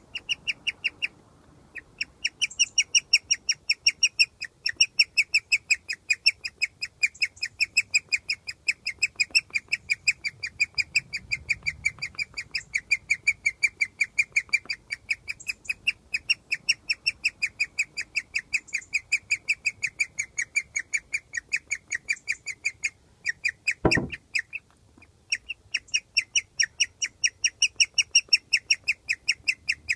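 Guinea pig chirping: a long run of short, high, bird-like chirps repeated about four times a second, pausing briefly about a second in and again near the end, a vocalization the owner takes to mean the guinea pig is very happy. A single knock sounds about 24 seconds in.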